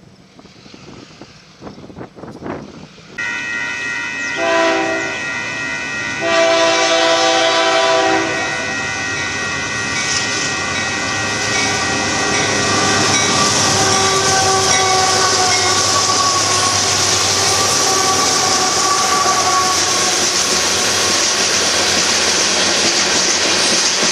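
Union Pacific diesel freight locomotive sounding its air horn in several blasts as it approaches a grade crossing, starting suddenly about three seconds in, then the rumble and wheel noise of the heavy rock train grows louder as it rolls past.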